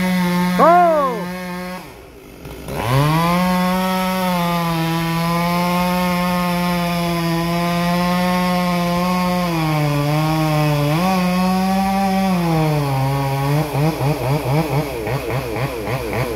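Two-stroke chainsaw cutting through a hickory trunk. After a couple of quick revs, it is held at full throttle for about ten seconds, its pitch sagging twice as it bogs in the cut. Near the end the engine speed pulses rapidly, about four times a second.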